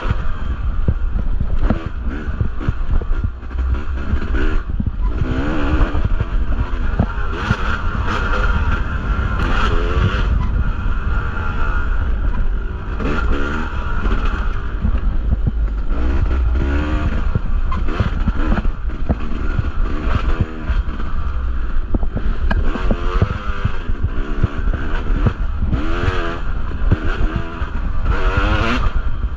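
Yamaha two-stroke dirt bike engine revving up and down again and again as the throttle is worked through the trail, with a steady low rumble and frequent sharp knocks.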